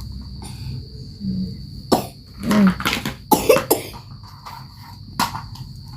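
A child coughing several times, in a cluster about two to four seconds in and once more near five seconds. It is the cough of a boy sick with fever and a cough that is already bad. A steady high insect trill runs underneath.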